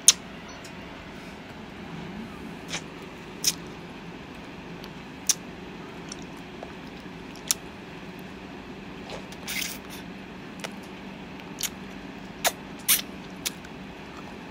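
Close-up eating sounds from a chocolate-and-nut-coated ice cream bar: scattered sharp clicks and smacks as it is bitten and licked, at irregular intervals. A steady low hum runs underneath.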